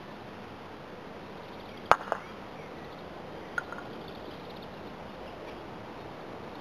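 A croquet mallet strikes a ball with one sharp, loud knock about two seconds in, followed a moment later by a second, lighter knock and, a second and a half after that, a faint click.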